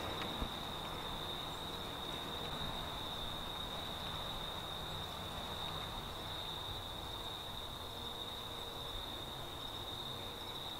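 Steady high-pitched insect chorus, one unbroken shrill note, over faint outdoor background noise.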